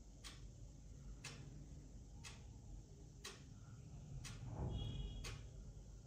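A clock ticking steadily, about one tick a second. A soft low rumble swells briefly about two-thirds of the way through.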